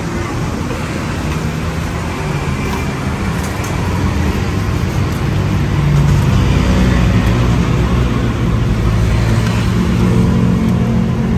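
Steady low rumble of road traffic with a vehicle engine's hum, growing louder about five seconds in.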